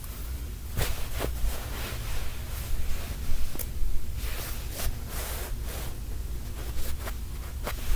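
Fabric rustling and handling of the recording phone against bedding, with half a dozen sharp clicks or knocks scattered through, over a steady low hum.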